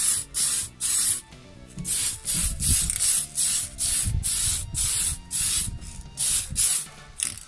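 Aerosol spray paint can spraying in short, repeated bursts of hiss, about three a second, with a brief pause about a second and a half in.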